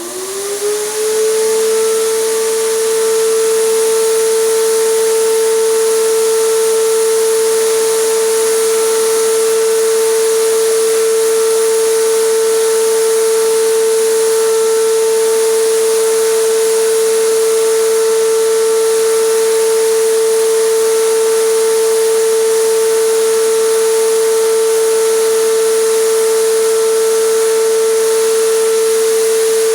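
Electric compressor motor starting up, its pitch rising over about the first second, then running at a steady high hum over a strong hiss of air, as used to spray acrylic resin.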